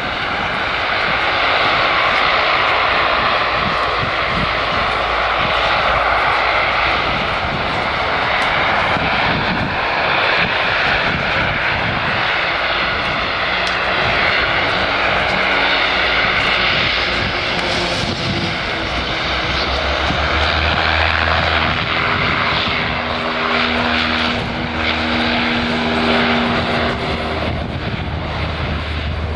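ATR 72 twin turboprop engines and propellers running at high power for take-off, a steady loud roar. About two-thirds of the way through, a deep propeller hum with steady droning tones comes in as the airliner starts its take-off roll.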